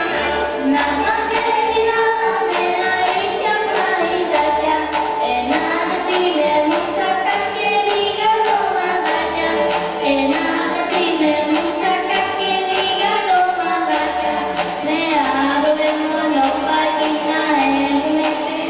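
A group of children singing a song together, with accompanying music that has a steady beat.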